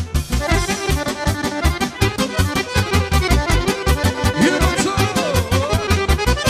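Serbian folk band music led by a Guerrini piano accordion, played fast over a steady bass beat, with a few sliding notes a little past the middle.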